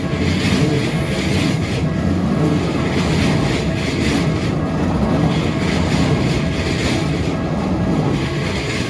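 A Keikyu electric train running past a level crossing: a loud, steady rumble of wheels on rails, easing slightly at the end, with the crossing bell's tones ringing faintly underneath.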